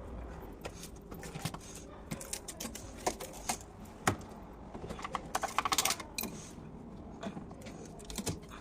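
Clicks and metallic clinks of tools and small parts being handled during a washing machine repair, with a quick run of clicks about five to six seconds in.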